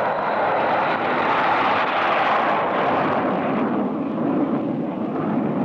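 Convair B-58 Hustler's four General Electric J79 turbojets at full power on the takeoff roll: a loud, steady jet roar with a thin high whine over it that fades after the first second or two. The roar turns deeper near the end.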